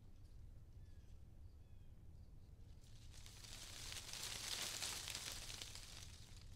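Leaves and branches of the tree canopy rustling, swelling up about three seconds in and dying away after about two seconds, over a low steady hum.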